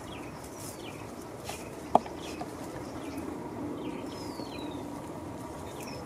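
Northern tamandua sniffing and rustling through dry scrub as it searches for ants and termites, with one sharp snap about two seconds in. Birds chirp faintly in the background.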